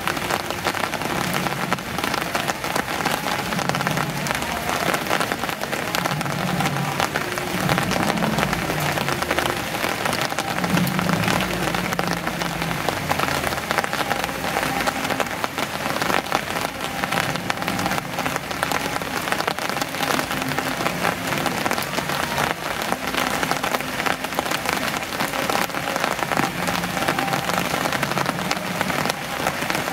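Steady heavy rain falling, an even hiss of drops pattering on the ground and roofs.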